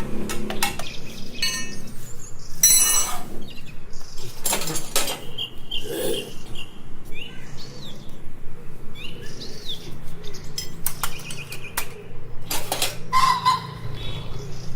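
Metal tools and parts clinking and knocking irregularly, a few strikes ringing briefly. Birds chirp in the background.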